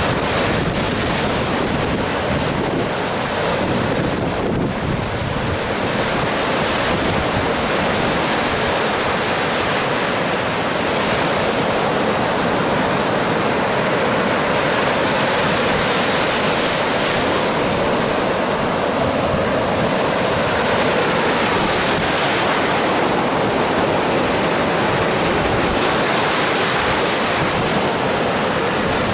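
Baltic Sea surf breaking and washing up a sandy beach in a steady, continuous rush, with wind buffeting the microphone.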